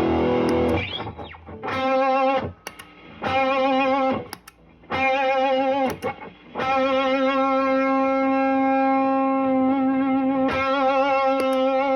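Electric guitar played through a Caline CP-47 Pressure Tank compressor pedal: a phrase of separate sustained single notes, the longest held about four seconds with vibrato.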